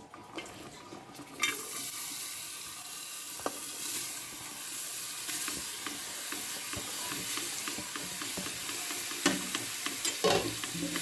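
Sliced onions sizzling in hot ghee in a pressure cooker. The sizzle starts suddenly about a second and a half in as the onions drop into the fat and holds steady, with a few sharp knocks near the end.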